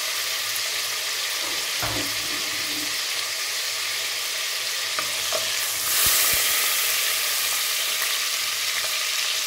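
Hot oil sizzling hard around fried onions after a spoonful of water has gone into the pot, the water spitting in the oil. About six seconds in it gets louder as a wooden spoon stirs the onions.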